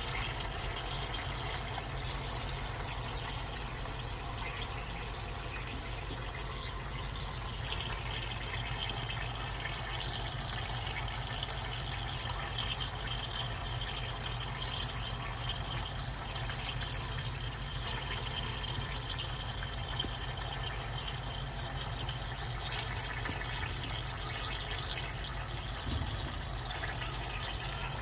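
Dry ice sublimating in water: steady bubbling and fizzing, with a few faint clicks here and there.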